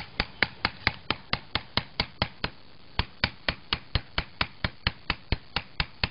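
Knife blade cutting through a block of sodium metal, with a sharp click about four times a second as it works through the block, pausing briefly about halfway.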